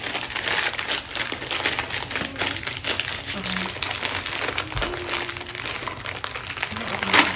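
Small bag of jalapeño kettle-style potato chips crinkling as it is handled and pulled open, with the loudest crackle near the end.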